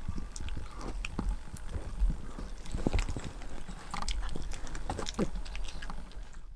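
Havanese dog gnawing and chewing a hard chew stick: irregular clicks and crunches of teeth on the chew, over a steady low rumble. It stops abruptly near the end.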